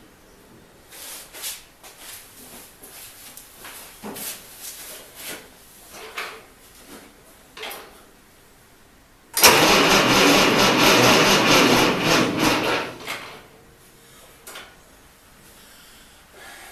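A string of light knocks and clicks, then about nine seconds in the starter of a Ford 8N tractor with a flathead six cranking the engine, loud, for about three and a half seconds before dropping away.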